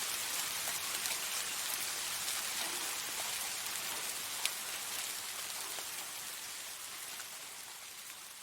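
Soft rain falling steadily: a hiss of many small drops with scattered light ticks, one sharper tick about halfway through. It gradually fades out over the second half.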